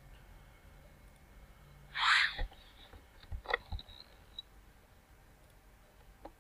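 A few sharp clicks of a computer mouse and keyboard, clustered between about two and four and a half seconds in, over a faint steady hum. Just before the clicks comes a brief burst of hiss, the loudest sound.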